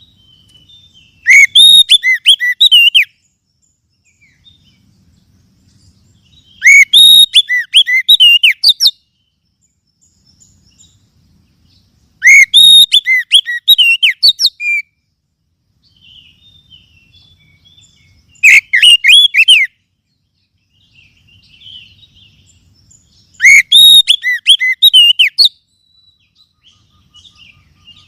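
Oriental magpie-robin (kacer) song: five loud bouts of quick, curving whistled notes, each about two seconds long, coming every five to six seconds with quiet gaps between.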